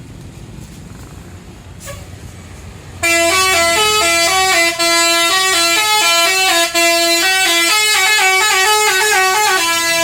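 A tour bus's telolet basuri musical horn plays a loud melody of stepped notes, starting about three seconds in after a low engine rumble and running to the end with two brief breaks.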